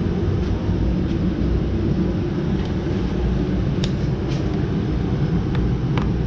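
A steady low mechanical drone runs throughout, with a handful of short, light clicks scattered through it.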